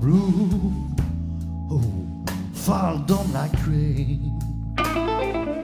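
Live blues band playing: an electric guitar through a Divided By 13 amp plays bent lead notes over drums, electric bass and keyboard.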